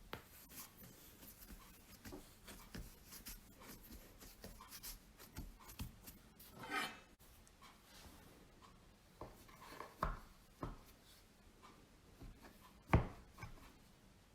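Light kitchen handling sounds: scattered soft knocks and rubbing of hands and utensils on a work surface, with one sharper knock near the end.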